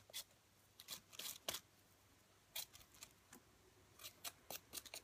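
Faint, short scraping strokes of potato skin being peeled, coming at an irregular pace about one or two a second.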